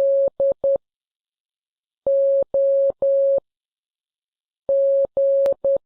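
Morse code beeps: a single steady mid-pitched tone keyed in three letters, dash-dot-dot, dash-dash-dash, dash-dash-dot, spelling DOG.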